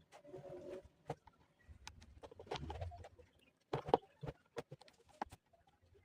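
Irregular sharp clicks and taps from hands working the stitching on a plastic chair seat, the loudest knock about four seconds in.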